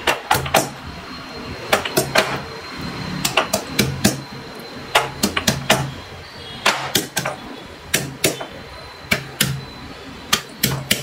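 Shallots being crushed with a stone pestle in a small black stone mortar: sharp pounding knocks in quick clusters of three or four strikes, with short pauses between clusters.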